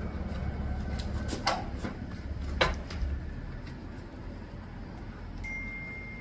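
Two short sharp knocks of parts and tools being handled while a motorcycle front wheel is refitted, over a low rumble; a thin steady high tone starts near the end.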